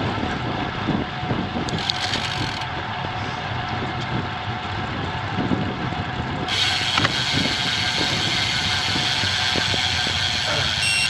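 Road bike's freehub ticking in quick clicks over steady riding noise, with a brighter hiss joining about six seconds in.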